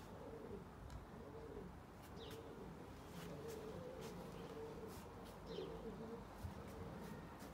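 Domestic pigeons cooing: low, repeated coos that come and go, faint.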